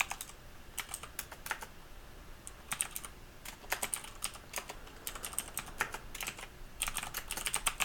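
Typing on a computer keyboard: quick runs of keystroke clicks in short bursts with brief pauses between them.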